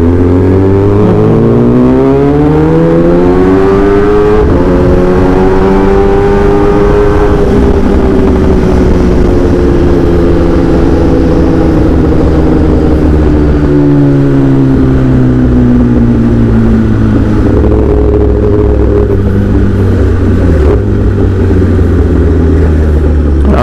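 Kawasaki ZX10R's inline-four engine heard from the rider's helmet, pitch rising as it pulls away for the first several seconds, then falling slowly as the rider eases off, and running steady at lower revs through the rest.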